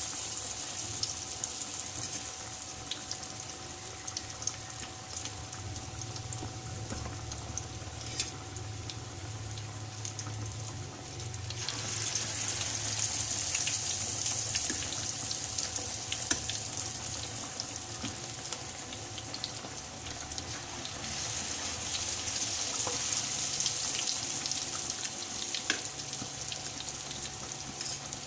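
Chicken drumsticks and wings deep-frying in hot oil: a steady sizzling hiss with scattered pops and crackles, which swells louder about twelve seconds in and again later.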